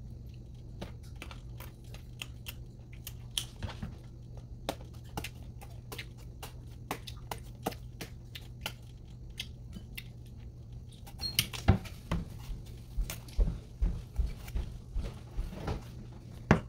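Kitchen knife peeling and slicing a hand-held green mango: irregular small clicks and scrapes of the blade through the firm flesh. From about eleven seconds in the clicks get louder, with low knocks, over a steady low hum.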